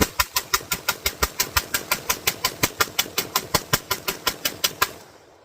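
A rapid, evenly spaced series of sharp clicks, about six a second, fading away steadily until they stop near the end.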